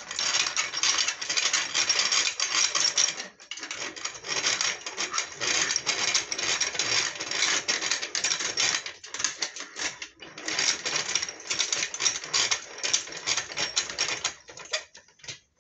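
Fast, continuous mechanical clattering from a device clamped to a homemade workbench as it is worked by hand to test it, in long runs broken by a short pause about three seconds in and a longer one around nine to ten seconds.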